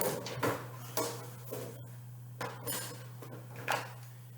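Parts of a dismantled fan heater clinking and knocking as they are handled, about seven separate knocks over a steady low hum.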